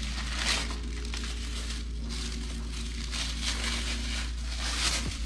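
Packaging crinkling and rustling as it is handled and opened, in several short bursts about a second apart, over a steady low hum.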